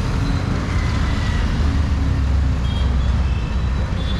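Street traffic: a steady low motor-vehicle engine rumble close by, with a few faint short high tones from horns in the distance.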